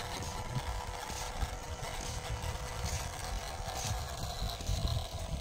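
Toy RC off-road crawler's small electric motor and gears running as it drives along a paved path, a faint steady whine over a rough low rumble.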